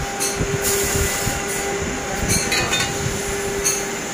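Steady workshop machine noise with a hum, broken by short hissing bursts about half a second in, around two and a half seconds in and near the end.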